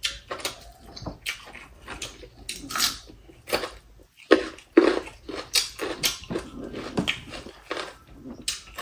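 Close-miked eating sounds: irregular wet chewing, lip smacks and mouth clicks, a few each second.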